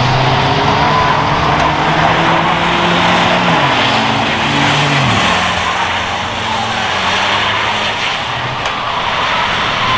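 Several old cars racing on a paved oval track, engines running hard and dropping in pitch twice as the drivers lift off, over a constant rush of tyre and track noise.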